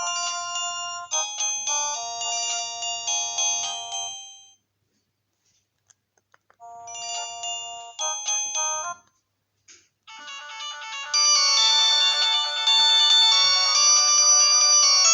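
Nokia 108 mobile phone playing its built-in electronic ringtones through its loudspeaker. One melody fades out about four and a half seconds in, and a short tune plays a couple of seconds later. Another ringtone starts about ten seconds in and gets louder a second after.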